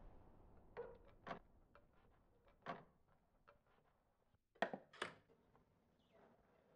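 Faint room tone with a handful of short, soft knocks and rustles, the loudest two close together about two-thirds of the way through: light handling sounds of a person moving about at a wooden doorway.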